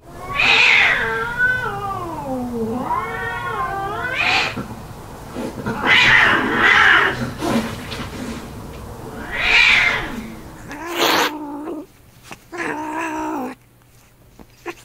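Cats caterwauling in a fight: long, wavering yowls that slide down and back up in pitch, broken by several louder screams, with shorter calls near the end.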